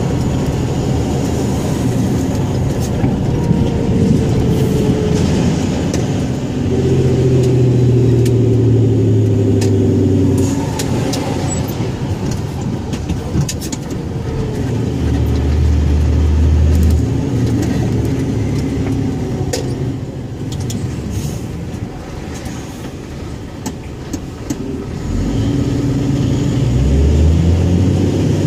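Scania 114G 340 truck's 11-litre straight-six diesel engine running under varying load, its note holding steady for a few seconds at a time, easing off and picking up again, with a deep low drone for a couple of seconds midway.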